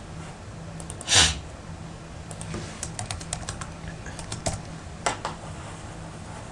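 Computer keyboard typing: a quick run of keystrokes entering a web address, with one harder stroke near the end. About a second in there is a single louder, dull thump. A faint low hum runs underneath.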